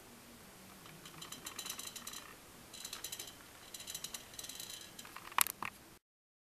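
A display turntable turned by hand in three short spells, rattling and clicking faintly as it turns, then one sharp click a little after five seconds in; the sound cuts off at about six seconds.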